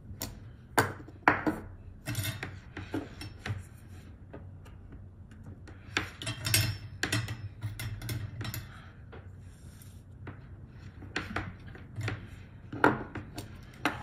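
Small hand tools clicking, tapping and scraping on a workbench while surface-mount parts are soldered onto a keyboard circuit board: irregular light ticks and short clatters, a few louder clicks, over a low steady hum.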